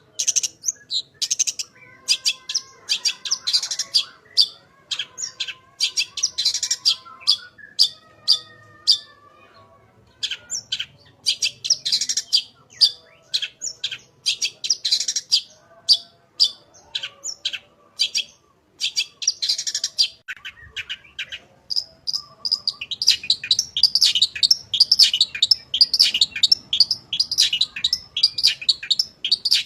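Long-tailed shrike (cendet) singing: quick runs of sharp, high chattering notes. A lower warbling phrase comes a few seconds in, the song pauses briefly twice, and a dense run of chatter fills the last several seconds.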